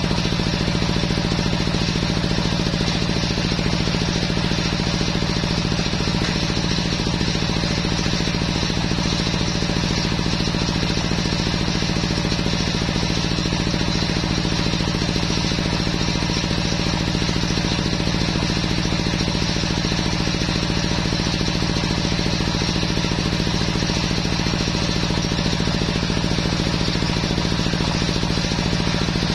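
Belt-driven circular saw bench running steadily as it rips a teak log lengthwise, its machine drone and the blade's cutting noise holding an even level throughout.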